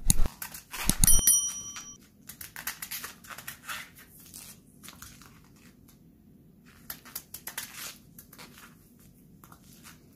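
Knife slicing a raw sweet potato over a glass blender jar, the slices dropping into the jar. About a second in, a knock sets the glass ringing briefly; after that come many short crunching cuts and taps.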